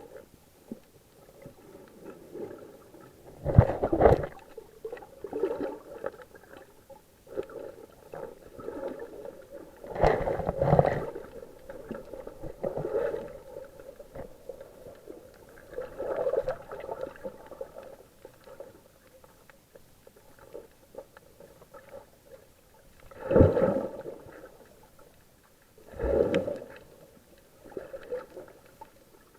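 Muffled underwater gurgling and sloshing of water, recorded underwater, swelling into several louder surges at irregular intervals.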